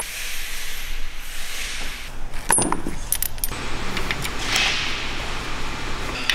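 Metal hand tools and spark plugs clinking, with a few sharp metallic clicks about two and a half seconds in, over a steady hiss.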